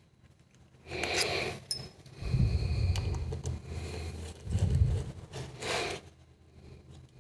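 Hands working over a ZF 6HP28 automatic transmission valve body: irregular scraping and rubbing of metal parts and handling noise, with one sharp metallic click about a second and a half in.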